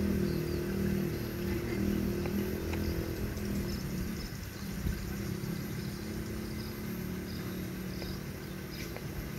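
Steady low hum of vehicle engines from nearby road traffic. It eases off after about four seconds, with faint high chirps above it.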